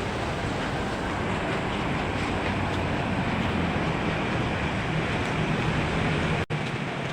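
Steady street traffic noise with a low engine rumble, broken by an abrupt cut a little before the end.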